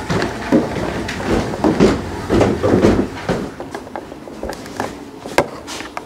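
Footsteps thudding on wooden stairs, a run of irregular thumps, then a single sharp click near the end.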